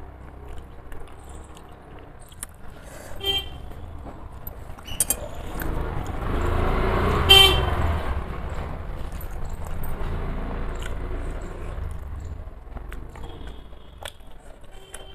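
A motor vehicle passing, its engine rumble swelling and fading over several seconds, with a short horn toot near the middle.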